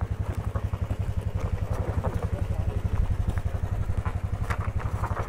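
Bajaj Pulsar motorcycle's single-cylinder engine running with a rapid, even low pulsing as several people manhandle the fallen bike down a loose dirt slope. A few scattered knocks and clatters are heard over it.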